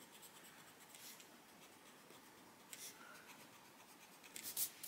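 Faint scratching and rubbing of a small tip against paper as a colouring-book page is worked over.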